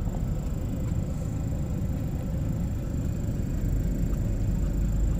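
Off-road vehicle's engine and drivetrain rumbling steadily at low speed, heard from inside the cabin. The low rumble grows stronger about three and a half seconds in.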